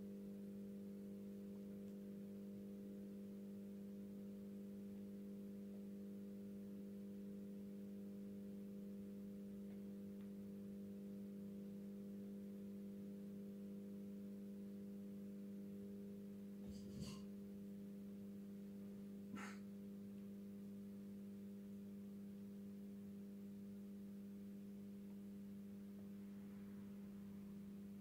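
Steady electrical hum of an Industria 2600 street light warming up. Two short, sharp clicks come about two-thirds of the way through.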